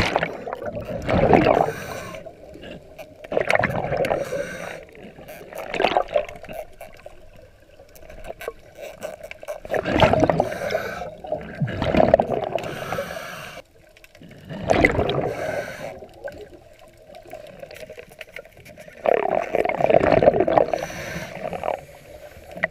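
Scuba diver's exhaled bubbles gurgling and rushing past an underwater camera in repeated bursts, one every two to four seconds, each breath lasting a second or two.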